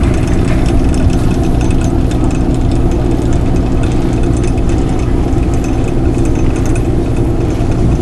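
Ferry's diesel engine running with a steady, even drone.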